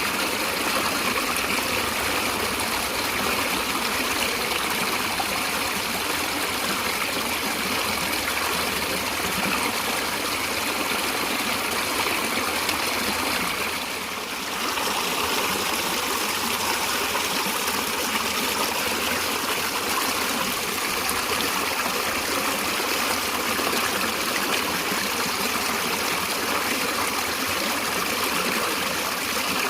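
A stream of water flowing steadily, with a brief dip in level a little before halfway through.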